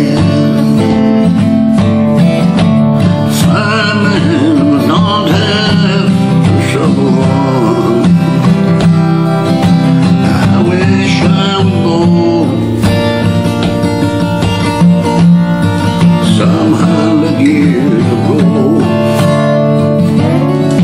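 Steel-string dreadnought acoustic guitar strummed in D minor, with a man singing a country-blues song over it in phrases that come and go.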